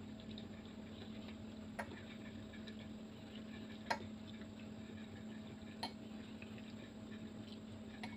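Metal fork clinking against a ceramic bowl while twirling noodles, four short clicks about two seconds apart, the loudest about four seconds in, over a steady low hum.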